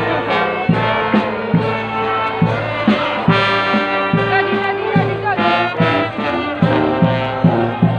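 Brass band playing a tune with trumpets and trombones over a steady drum beat.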